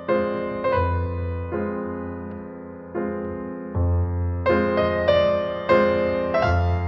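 Slow, gentle piano music: single notes and chords struck about once or twice a second over a sustained low bass note, each note fading after it is struck.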